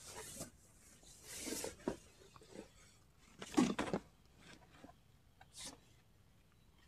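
A foam sleeping mat rubbing and scuffing as it is handled and unrolled, in a few short bursts; the loudest comes about halfway through.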